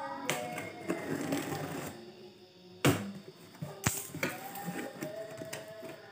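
Cardboard box flaps and packing tape being pulled open by hand, crackling and rustling, with a loud sharp knock about three seconds in and a smaller one a second later.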